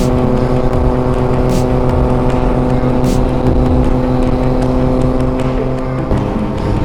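Motorcycle engine running at a steady cruising speed, with road and wind noise. The engine's pitch steps down abruptly about six seconds in.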